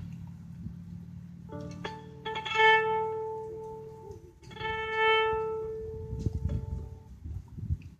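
Instrumental music: a few long held notes, two of them swelling loudest about two and a half and five seconds in, over a low steady hum.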